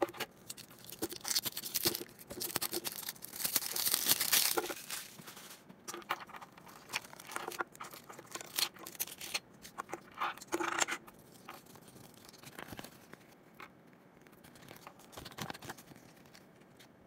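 A plastic gashapon capsule being handled and twisted open: a run of clicks, taps and scrapes from the hard plastic shell, mixed with crinkling and rustling of plastic wrap and a folded paper instruction sheet. The crinkling is densest a few seconds in, and the handling grows quieter near the end.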